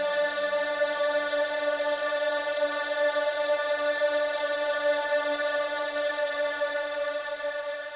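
Background music: a long sustained chord, like held voices or synth pads, that stays on one pitch throughout. A faint pulsing beat drops out about a second and a half in, and the chord fades out over the last couple of seconds.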